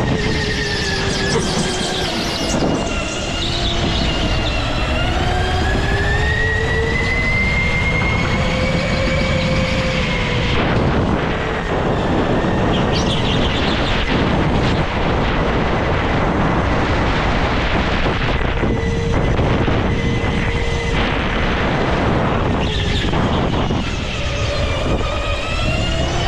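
Go-kart motor whining as the kart is driven at speed, its pitch dropping and climbing again and again as it slows for corners and accelerates out of them, over a steady noise.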